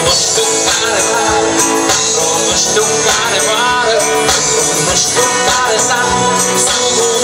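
Rock band playing live through a stage PA, heard from within the crowd: drums with a steady beat under amplified guitars.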